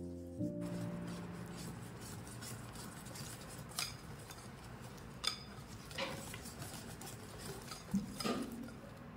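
Wire balloon whisk stirring cake batter in a glass bowl: a steady soft stirring noise, with a few sharp clinks of the wire against the glass in the second half.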